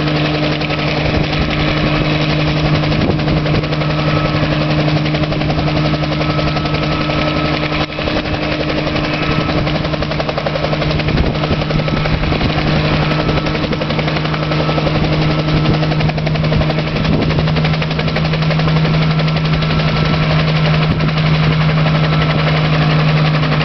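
Bell 47J-2 helicopter hovering, its Lycoming six-cylinder piston engine and two-blade main rotor running steadily with a fast, even chop over a steady low hum.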